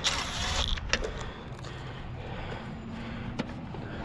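Metal cable clamp being handled and turned over on the strand: a few light clicks and scrapes of hardware, the sharpest near the start, about a second in and near the end.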